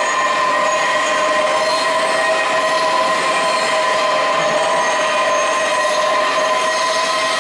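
HEM DC-4063 dual-column horizontal band saw running: a loud, steady metallic squeal of several held tones over a hiss.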